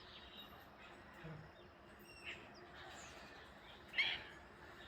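Faint wild bird calls: a few short, sharp chirps, the loudest about four seconds in, over a steady outdoor hiss.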